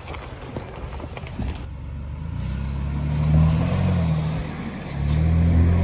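Tyres crunching slowly over dry ground and twigs with scattered clicks. Then a Ford Bronco's engine revs hard under load as its front tyre spins in loose sand, swelling in two surges, the second near the end.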